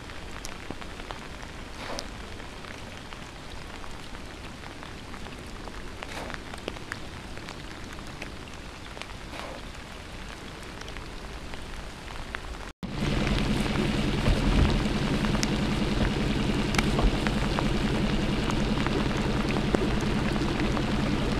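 Steady rain hiss with scattered drop-like ticks. About halfway through, the sound cuts out for an instant and comes back louder, with a steady low hum underneath.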